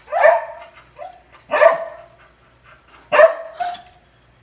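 A dog barking: three sharp barks about a second and a half apart, with a quieter one between the first two.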